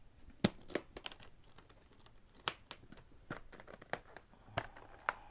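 Irregular sharp clicks and light rustling as a guitar case is opened by hand to get at a new Martin HD-28V acoustic guitar.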